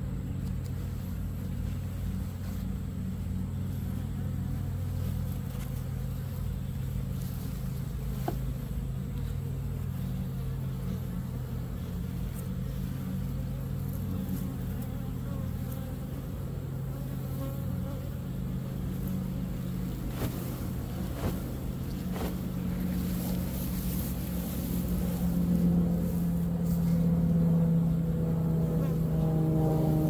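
Swarm of honey bees buzzing in a steady low hum as they are shaken off a sheet and branch into a hive box, the buzz growing louder in the second half.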